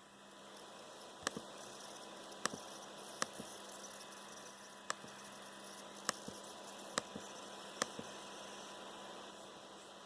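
Coil whine from a Dell XPS 13 9360 laptop with a Core i7 and QHD+ screen, coming from the processor area: a faint, steady electrical hum and hiss. About seven sharp clicks sound over it at irregular intervals.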